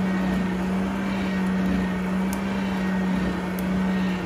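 Coal forge fire burning on forced air: a steady blower hum under the rush of the flames, with a few faint crackles.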